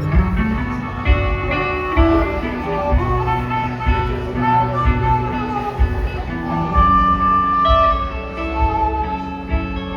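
Live blues band playing a slow instrumental passage: guitar, long held melody notes and a steady drum and bass beat.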